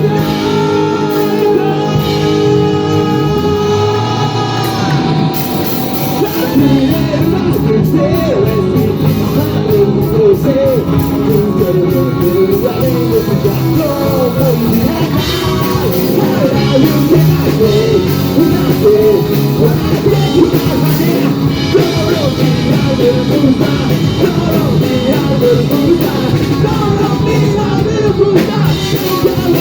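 Rock band playing a song: guitars and drums hold steady chords for the first few seconds, then a singer comes in with loud, yelled-edged singing over the band.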